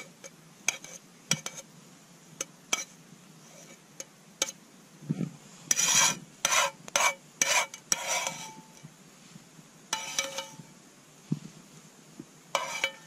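Spoon scraping and clinking in a camping dish in a run of quick strokes, some leaving a short ring, with scattered small clicks and knocks.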